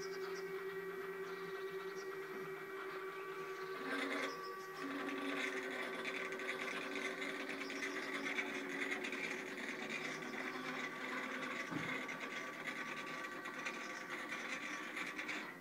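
Axis drive motors of a home-built CNC plasma table running as the machine moves: a steady whine made of several held tones, with a brief change about four seconds in, cutting off near the end.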